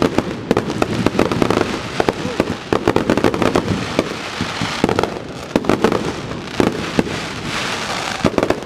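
Fireworks display going off: a dense, rapid run of aerial shell bursts and bangs, many each second, overlapping without a break.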